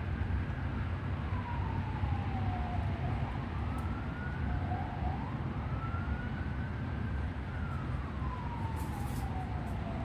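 An emergency vehicle siren wailing: one tone that slowly falls and rises again over several seconds. Under it runs a steady low rumble.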